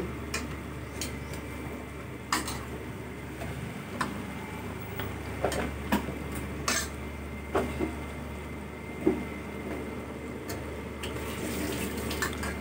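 A metal spoon stirring chicken and spice masala in an aluminium pressure cooker: scattered clinks and scrapes of metal on the pot every second or so, over a steady low hum.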